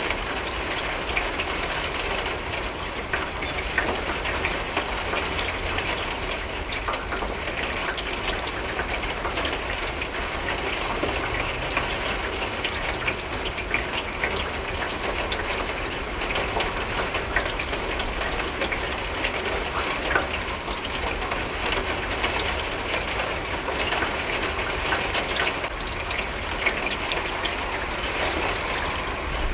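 Steady rain pattering on a window, a dense, even patter of drops with no pauses.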